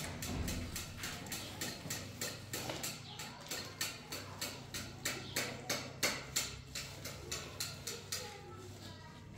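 Hands working white powder in a metal basin: a steady run of soft taps, about three a second, that fade near the end.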